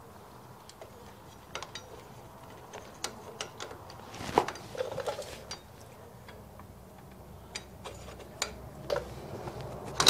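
Scattered light clicks and taps of a motorcycle front brake caliper with new pads being worked back over the disc by hand, metal and pad backing plates knocking lightly. One sharper knock comes about four and a half seconds in.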